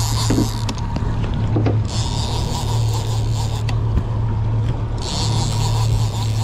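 Yamaha 100 outboard motor running with a steady low hum as the boat trolls. Over it comes a rasping hiss from the large conventional fishing reel being worked; the rasp comes and goes and is strongest near the end.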